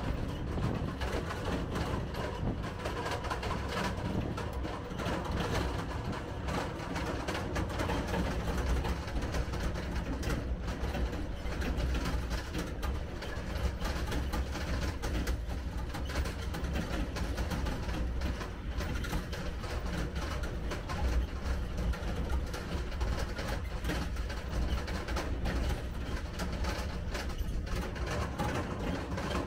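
Tractor engine running steadily while towing a trailer over a gravel track, with the trailer's metal frame rattling and clattering.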